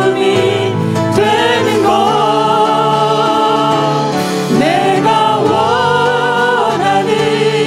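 A church praise team of mixed women's and men's voices singing a worship song into microphones over a sustained instrumental accompaniment, holding long notes with vibrato in the middle of the phrase and again near the end.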